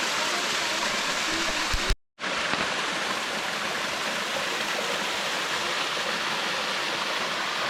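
Small woodland waterfall and creek rushing steadily. The sound cuts out completely for a moment about two seconds in, just after a short knock.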